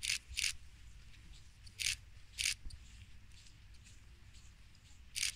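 Five short, crisp rustling noises, irregularly spaced, over a low steady rumble.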